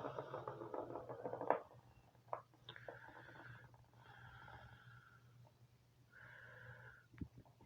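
A kitten mews three times, short pitched calls a little under a second each, after a second or so of rustling and small clattering.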